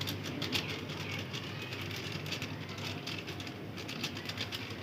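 Pot of goat-meat curry cooking on the fire: a steady hiss with scattered light crackles and ticks.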